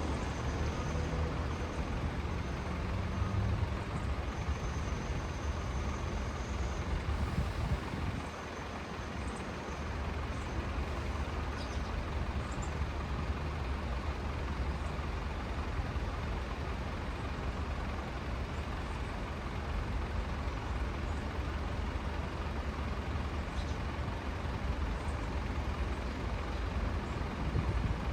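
City road traffic: cars and buses passing in a steady low rumble, dipping briefly about eight seconds in.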